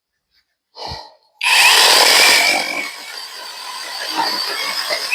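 Battery-powered electric chainsaw starting about a second and a half in and cutting into a log, a steady high whine of motor and chain, loudest for the first second, then quieter and building slowly through the cut. A short knock comes just before it starts.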